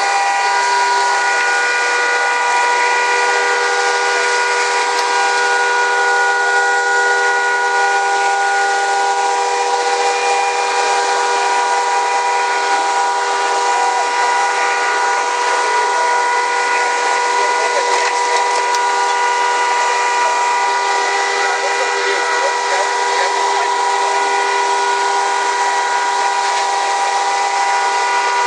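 Steady, loud rushing hiss of fire-hose water streams, with several steady whining tones from fire engines running their pumps.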